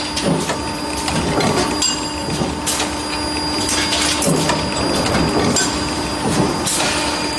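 Parts-processing machinery running with a steady multi-tone hum, overlaid by irregular clattering and knocks.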